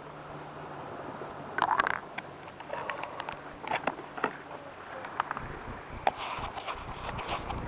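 Close-up handling noise of a small action camera: irregular scrapes, clicks and knocks as a hand grips and shifts it.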